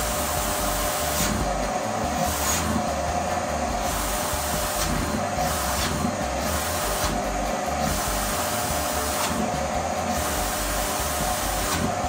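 Canister vacuum cleaner running steadily, a rush of air with a constant whine, its nozzle held against clothing; the hiss of the suction changes in tone every second or two as the nozzle is moved about.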